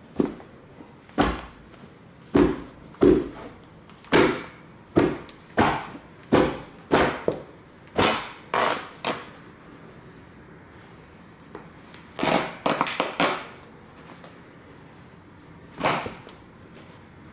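Stomps of white Nike Air Force 1 sneakers on a shredded plush dinosaur and the wooden floor under it. About a dozen sharp thuds come at roughly two a second, then a quick flurry of stomps a few seconds later and a single stomp near the end.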